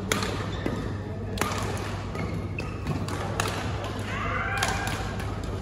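Badminton rackets hitting a shuttlecock back and forth in a rally: several sharp hits a second or two apart.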